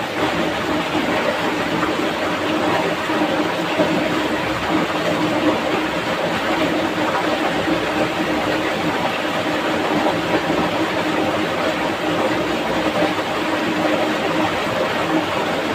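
Fast, muddy stream rushing over rocks in whitewater rapids, a steady, unbroken rush of water.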